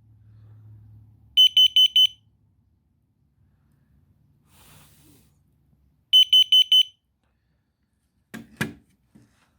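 Combination smoke and carbon monoxide detector alarm going off: two groups of four quick, shrill beeps about four and a half seconds apart, a four-beep pattern typical of a CO alarm, triggered by a reading of 220 parts per million. A couple of short knocks near the end.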